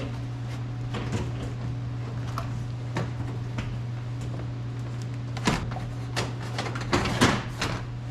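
Interior door trim panel being pried off a car door: plastic retaining clips snapping loose and the panel knocking and rattling. A few scattered snaps at first, then a quicker run of them in the last couple of seconds.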